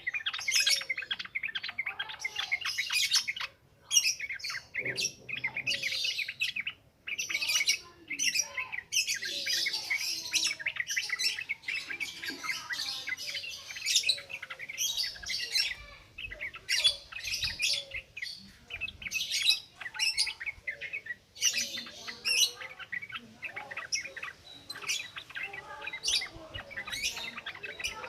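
Sooty-headed bulbul (trucukan) singing a rapid, unbroken chattering song in the wild "ngropel" style, phrase after phrase with only a couple of short pauses.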